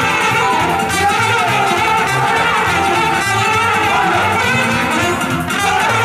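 Live lăutari band music, amplified: a trumpet, miked at its bell, plays the melody over a steady bass and backing accompaniment.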